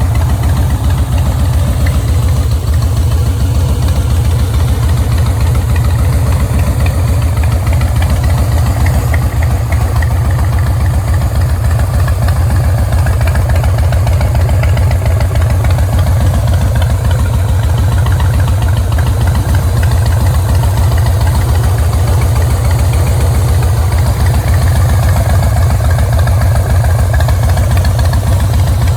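2007 Harley-Davidson Fat Boy's Twin Cam 96 V-twin idling steadily through a Freedom Performance aftermarket exhaust, with no revving.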